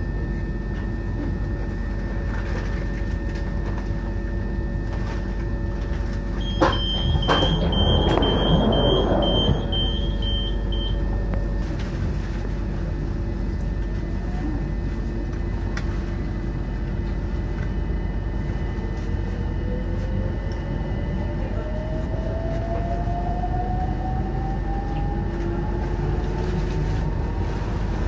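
Electric commuter train heard from inside the carriage: a steady rumble with a constant motor hum. About seven seconds in comes a run of short high beeps with some clatter. From about two-thirds of the way through, a whine rises slowly in pitch as the train picks up speed.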